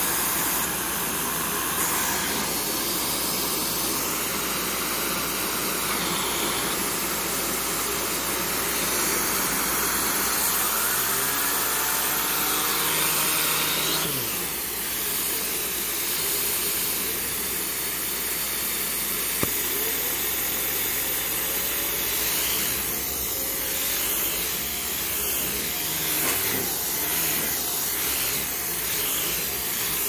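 Shark Stratos upright vacuum running with its air-driven turbo brush on the hose, being run over couch upholstery. There is a steady motor and airflow noise with a hiss of air bleeding through the suction-control valve. The sound shifts abruptly about 14 seconds in, and a single sharp click comes about 19 seconds in.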